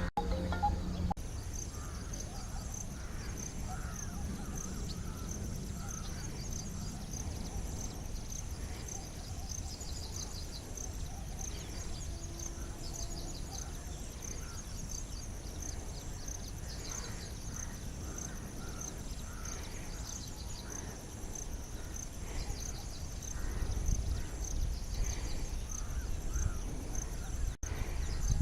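Outdoor field ambience: scattered faint bird calls over a steady, pulsing high-pitched chirring, with low rumble that grows louder near the end.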